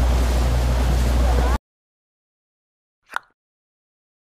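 Wind buffeting the microphone over a steady low rumble and rushing water from a moving boat, cutting off abruptly about a second and a half in. Near the end there is one short, sharp sound effect after silence.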